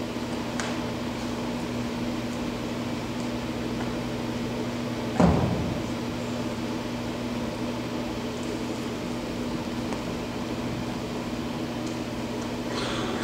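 Steady low hum of room ventilation, with one loud thump about five seconds in.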